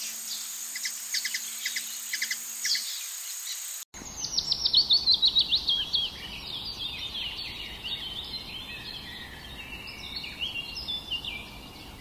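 Hummingbird calling with rapid high chips. After a short break about four seconds in comes a fast run of descending high chirps, then a chattering twitter.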